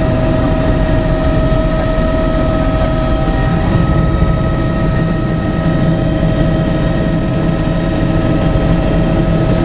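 Helicopter engine and rotor running steadily, heard from inside the passenger cabin: a loud, even drone with a steady high whine over it.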